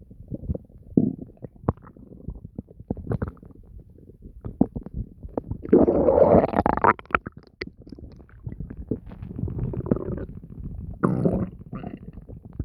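Human stomach and bowel sounds: a run of small pops and gurgles, with a long, loud gurgle about six seconds in, a lower rumble after it, and another short, loud gurgle near the end.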